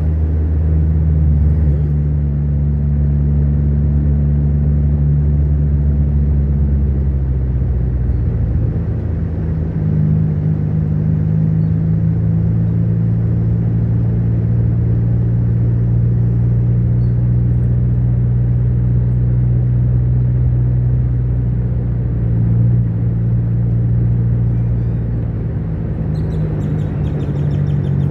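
Car engine and road noise heard from inside the moving car's cabin: a steady low hum whose pitch changes about eight seconds in.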